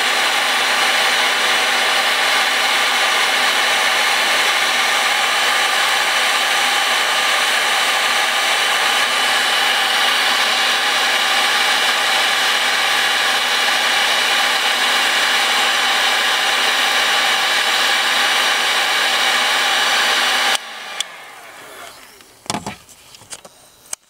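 Electric hot-air blower running steadily with a faint whine, heating the bitumen sound deadening on a car floor. It is switched off suddenly about 20 seconds in, followed by a few faint knocks.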